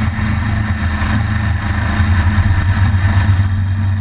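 Motorcycle engine running steadily while riding, with road and wind noise over it. The engine note swells slightly about halfway through.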